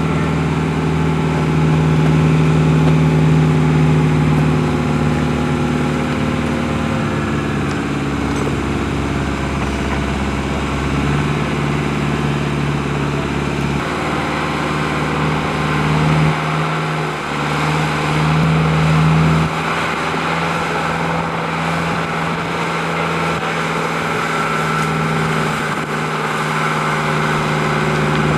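Unimog engine running as the truck crawls over rocks, with a steady engine note that falls away about sixteen seconds in and picks up again a few seconds later.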